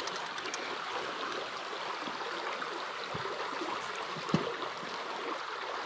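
Creek water flowing, a steady rushing hiss, with one faint click about four seconds in.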